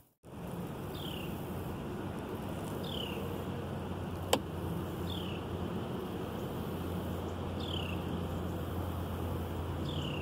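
Steady outdoor background noise with a low hum. A short, high, falling chirp repeats about every two seconds, and a single sharp click comes about four seconds in.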